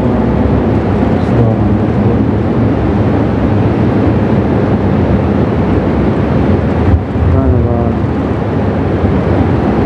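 Mosque congregation's voices after the Isha prayer, heard as a dense murmur echoing in the large prayer hall, with a voice holding pitched chanted tones briefly about seven seconds in.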